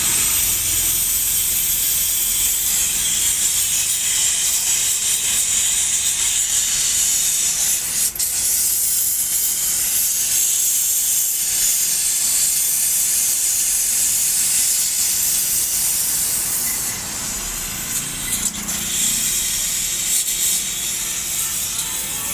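A steady, loud hiss, strongest in the high range with little low end, which eases slightly about seventeen seconds in.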